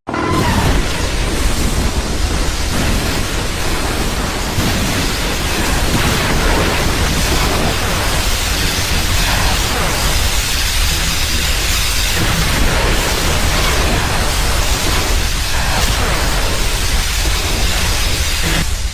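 Monsterverse King Ghidorah sound effect: a loud, steady rushing noise with a deep rumble beneath, like a thunderstorm, starting abruptly.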